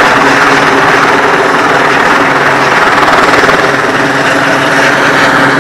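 Helicopter flying low overhead, its rotor and turbine engine running loud and steady.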